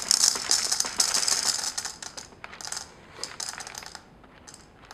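Whole coffee beans pouring from a bag into a burr grinder's hopper, rattling densely for about two seconds and then in short spurts.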